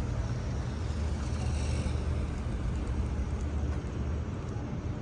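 Light city street traffic: a minivan drives past close by, its engine and tyre noise easing off, over a steady low rumble from the street.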